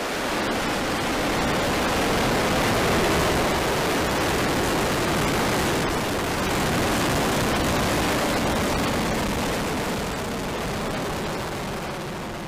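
SpaceX Falcon 9's nine Merlin first-stage engines at liftoff: a steady, rushing roar that swells over the first couple of seconds, holds, then slowly fades as the rocket climbs away.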